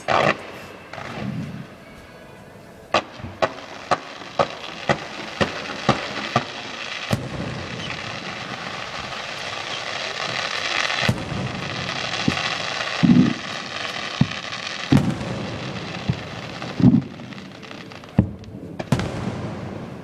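Aerial fireworks going off: a quick run of sharp bangs about two a second, then a dense crackle, with several heavier booms in the second half.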